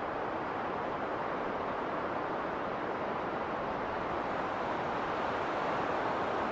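Winter storm wind blowing steadily as a continuous rushing noise. It swells a little over the last couple of seconds.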